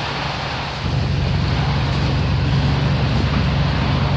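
Bus engine running, heard inside the passenger cabin as a steady low drone over a wash of noise, getting louder about a second in.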